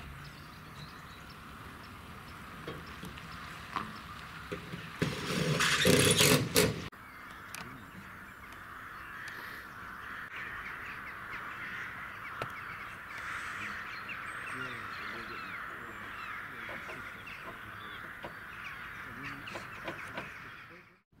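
Outdoor ambience of many birds calling together, a dense chatter of short calls. About five seconds in, a loud burst of rushing noise lasts about two seconds and cuts off suddenly.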